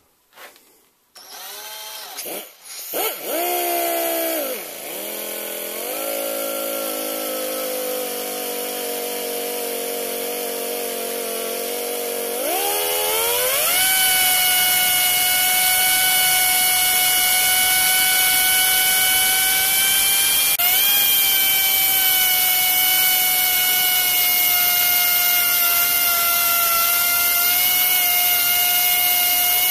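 Cordless drill motor whining as it spins a Teflon pulley, its pitch rising and dipping a few times before it settles. About twelve seconds in, a handheld rotary grinder starts with a louder, higher steady whine and a grinding hiss as it cuts a groove into the edge of the spinning Teflon.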